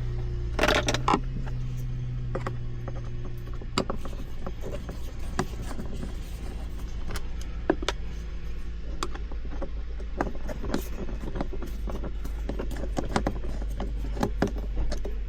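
Scattered clicks and light knocks of plastic centre-console trim being handled and unclipped, over a steady low hum.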